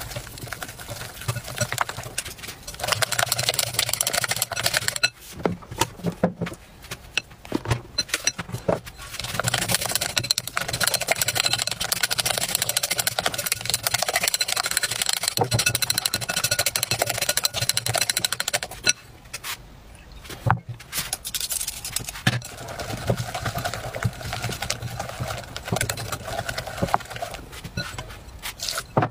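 Whisk beating thick egg-and-flour batter in a glass bowl: fast, steady clicking and scraping against the glass. It eases off for a few seconds about two-thirds of the way through, then resumes more softly.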